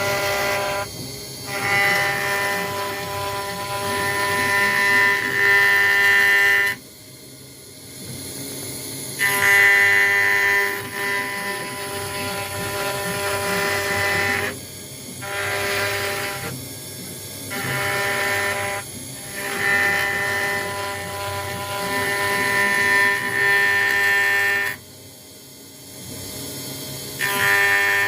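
CNC router spindle with a 1 mm ball-end mill cutting acrylic: a steady machine whine of several held tones that swells and eases as the tool moves. It drops away twice for about two seconds, about seven seconds in and again near the end.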